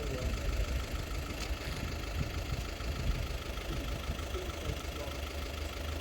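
An engine idling steadily, with a constant low rumble.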